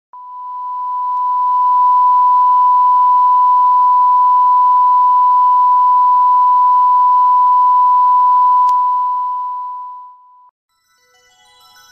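A steady, loud electronic test tone at about 1 kHz with a faint hiss beneath it, swelling over the first couple of seconds and stopping about ten and a half seconds in. Keyboard music starts fading in near the end.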